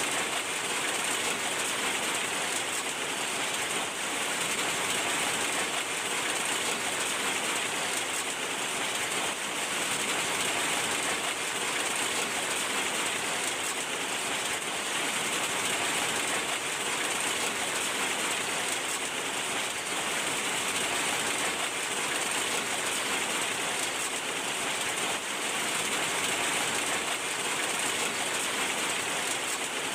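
Heavy rain falling steadily, an even hiss that does not let up.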